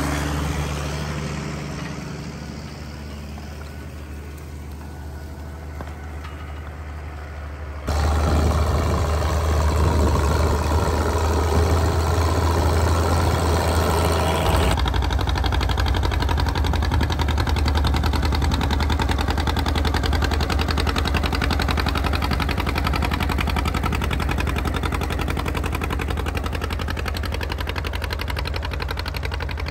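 Farm tractor engines running with a steady low drone, heard in three cut-together stretches: the first fades as the tractor draws away, then two louder, steady stretches follow.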